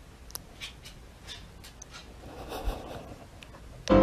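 Faint clicks, scuffs and rustling in a small room, then piano music starts abruptly near the end.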